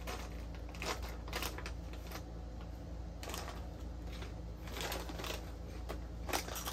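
Rap Snacks potato chip bag handled and chips eaten: scattered short crinkles and crunches.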